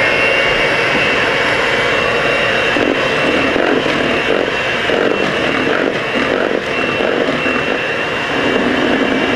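Electric hand mixer running steadily with a high whine, its beaters churning pancake batter in a plastic bowl.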